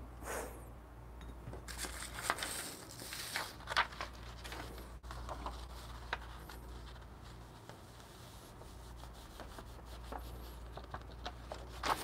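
Faint rustling of a sheet of paper being lifted and folded as ground coffee is tipped off it into a stainless steel dosing cup, with a few light taps.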